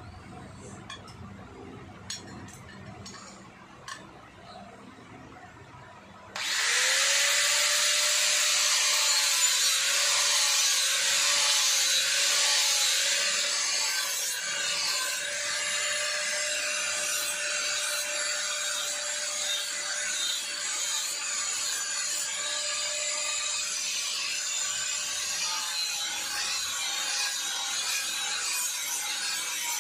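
A few light knocks, then about six seconds in an electric angle grinder starts up and grinds along a steel blade: a harsh steady hiss over the motor's constant whine. The grinding eases a little about halfway through.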